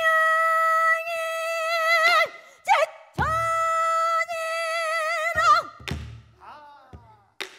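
Pansori singer's female voice holding two long sung notes in the mournful gyemyeonjo mode, each wavering with vibrato as it ends. Low strokes of the buk barrel drum mark the start of the second note and come again about six seconds in.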